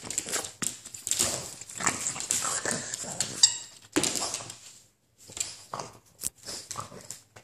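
A small dog scampering about on a hardwood floor, its claws and paws making irregular clicks, taps and scuffs.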